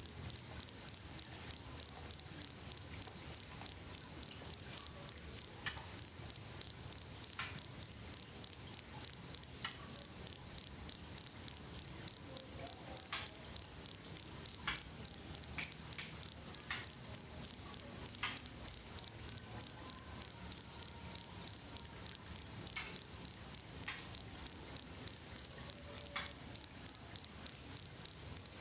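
Cricket chirping steadily: a high-pitched chirp repeated evenly about three times a second.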